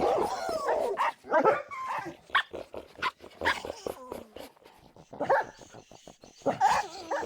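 Dog barking and making other short calls in quick succession, some sliding in pitch, with a quieter spell in the middle.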